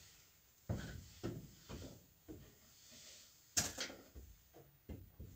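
Footsteps on a wooden floor, then a metal bucket set down with a sharp clank about three and a half seconds in, the loudest sound.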